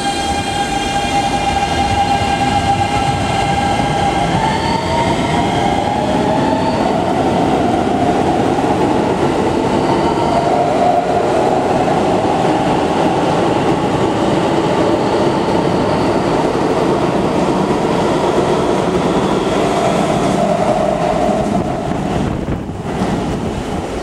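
Keikyu New 1000 series electric train pulling out and accelerating. Its Siemens GTO traction inverter sounds a run of tones that step upward in pitch over the first few seconds, then the cars rumble and clack past steadily. The sound breaks off abruptly near the end.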